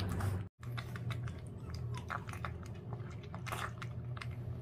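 Puppy eating soft mashed food from a stainless steel bowl, with quick, irregular wet chewing and smacking clicks over a low steady hum.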